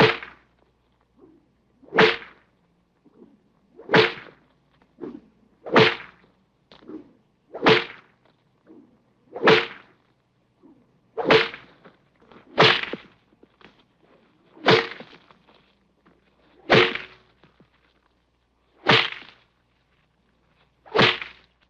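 Whip crack sound effects: a series of sharp whip cracks, about one every two seconds, a dozen in all, with fainter small snaps between some of them.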